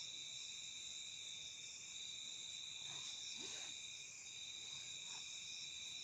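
A steady, high-pitched insect chorus, chirring without a break. A faint, brief voice-like sound rises in pitch about halfway through.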